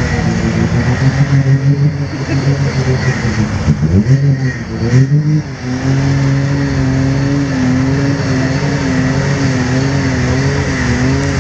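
Can-Am Maverick X3's turbocharged three-cylinder engine revving hard under load, the revs dipping and climbing again about four to five seconds in, then held high with a slight waver. The side-by-side is driving with one drive shaft broken.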